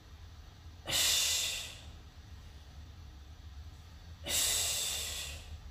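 A woman's forceful exhalations during crunches: two sharp, breathy breaths out about three seconds apart, each fading over about a second as she curls up.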